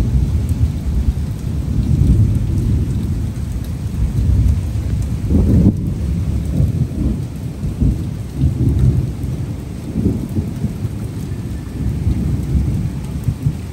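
Heavy rain in a thunderstorm, under a continuous low rumble that rises and falls, swelling about six seconds in.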